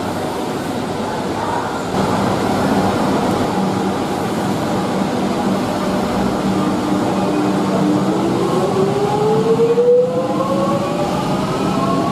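Metro suburban electric train, an X'Trapolis 100, pulling out of an underground platform. A steady hum is followed, from about two-thirds of the way in, by the traction motors' whine rising in pitch as the train accelerates away.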